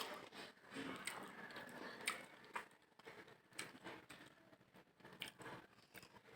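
Faint eating sounds: someone chewing mutton biryani, with scattered soft mouth and lip clicks roughly once a second.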